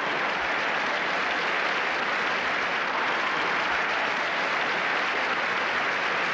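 Large audience applauding and laughing, an even, sustained wash of clapping that holds steady throughout.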